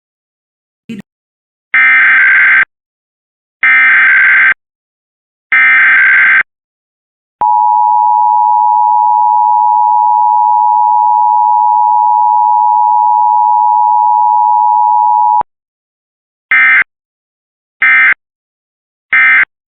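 Emergency Alert System sequence: three roughly one-second bursts of SAME header data, then the two-tone attention signal (853 and 960 Hz) held steady for about eight seconds, then three short end-of-message data bursts, with no spoken message in between. A brief click comes about a second in.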